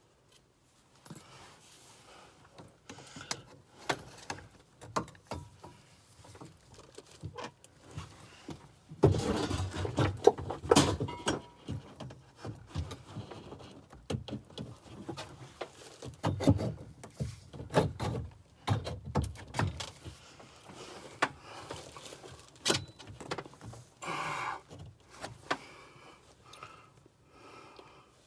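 Hand work on central-heating pipework while a magnetic filter is fitted: metal fittings and tools clinking, tapping and knocking at irregular intervals. The knocks come thickest and loudest about nine seconds in and again around sixteen to twenty seconds in.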